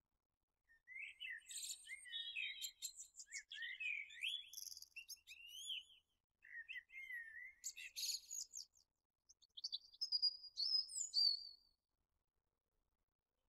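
A songbird singing a varied run of quick chirps and warbled phrases, with a short pause midway and a thin high trill near the end.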